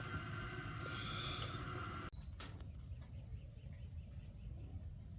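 Insects chirring outdoors in a steady high-pitched drone, over a low rumble of wind and handling noise. The sound changes abruptly about two seconds in, where the insect tone becomes higher and louder and then holds unchanged.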